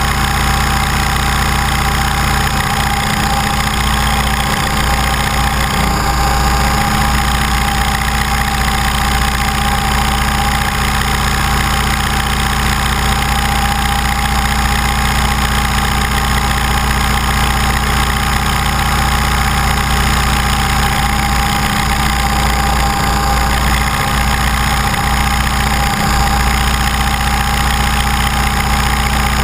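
Align T-Rex 550E electric RC helicopter heard through its onboard camera in flight: a steady whine and buzz from the brushless motor, gears and rotors, holding a constant pitch.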